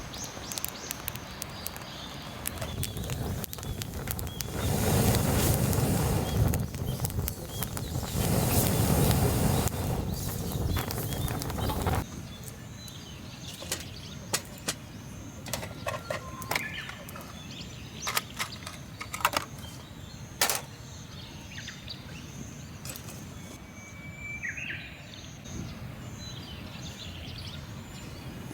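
Outdoor sound: a noisy stretch of rustling for about the first twelve seconds that swells twice, then a quieter background with scattered sharp clicks and a few short bird chirps.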